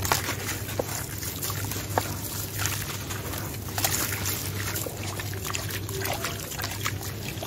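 A soaked sand-cement block being squeezed and crumbled by hand in a tub of water: dense gritty crackling and crunching mixed with sloshing and trickling water, with a few sharper cracks as pieces break off.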